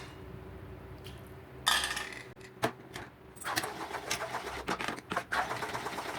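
Hot ghee added to a cooking Mysore pak mixture of gram flour and sugar syrup: a short rush as it goes in, then the mixture sizzles and crackles with many small pops while a spoon stirs and scrapes the pan.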